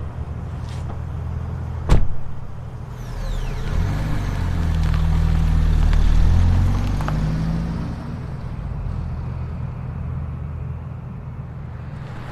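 Car engine running with a low rumble that swells for a few seconds near the middle, with a single loud sharp knock about two seconds in.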